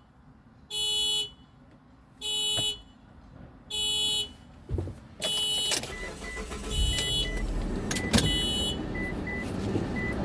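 Car alarm on the parked car next door, sounding its horn in short honks, about one every second and a half. After about five seconds the honking stops and a low rumble with faint short beeps takes over.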